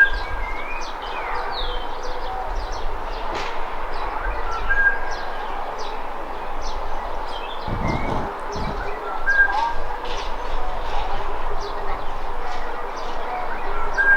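Several wild birds singing and chirping together, with one short whistled note repeating about every five seconds. A brief low rumble about eight seconds in.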